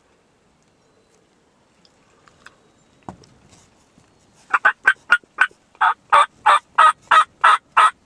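Turkey calling: a loud run of about a dozen sharp, evenly spaced notes, a little quicker at first and then about three a second, starting about four and a half seconds in.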